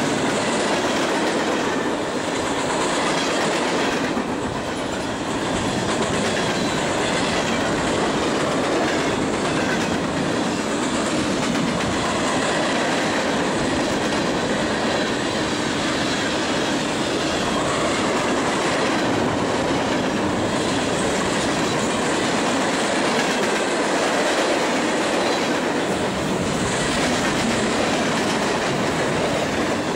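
Freight cars of a passing manifest train (boxcars, tank cars and covered hoppers) rolling by close at speed: a steady, loud rumble and clatter of wheels on the rails that holds level throughout.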